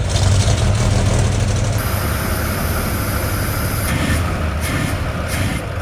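1954 Chevrolet truck engine running with a steady low rumble. A hiss joins about two seconds in and lasts for about two seconds.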